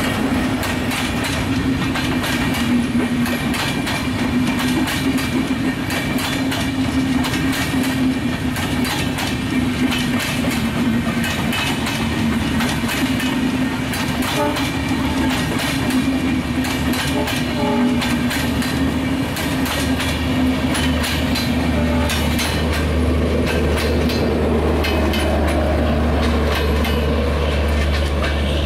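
Intercity passenger train coaches rolling past at speed, wheels clicking steadily over the rail joints with a constant rumble. After about twenty seconds a deep steady drone comes in underneath.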